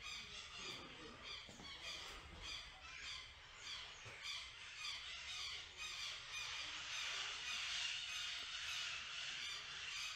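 Birds calling outside in a rapid chatter of short repeated squawks, several a second, growing denser and a little louder in the second half.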